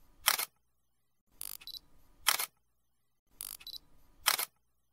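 Camera shutter sound effect repeating about every two seconds: each time a softer clicking burst, then a loud sharp shutter snap. Three snaps in all.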